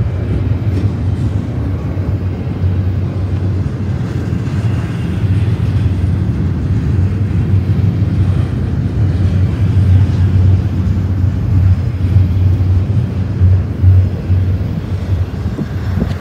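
BNSF double-stack intermodal well cars rolling past on the rails: a steady, loud low rumble of steel wheels on track.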